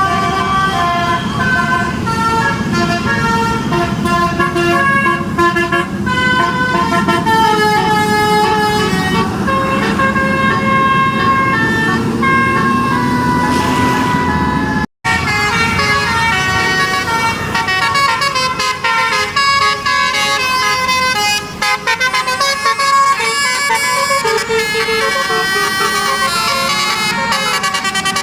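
Telolet basuri bus horns, several air-horn trumpets playing a multi-note melody that steps from note to note, over a bus engine whose pitch rises just before a short break to silence about halfway through. After the break another bus's basuri horn plays its own melody.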